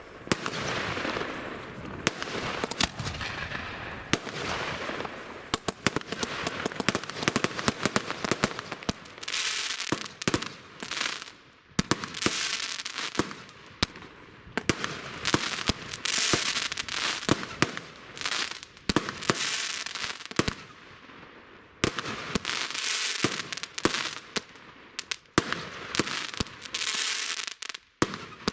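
Fireworks going off in quick succession: sharp bangs, many followed by a second or two of hissing crackle, with brief lulls between volleys.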